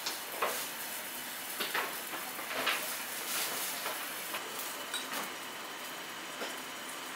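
Commercial ramen kitchen at work: a steady hiss from steaming pots boiling on a gas range, with irregular light clinks of metal utensils and pans.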